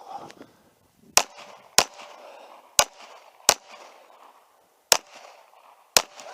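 Six handgun shots fired during an IPSC course of fire, coming in rough pairs about half a second to a second apart.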